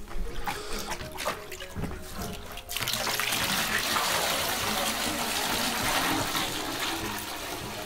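A few light handling knocks, then, a little under three seconds in, water starts pouring in a steady, splashing stream from a plastic container into a partly filled plastic bucket. The stream eases slightly near the end.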